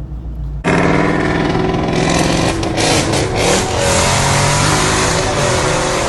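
Straight-piped 5.0 V8 exhaust: a low rumble that turns much louder about a second in as the engine revs and pulls, its pitch rising and falling.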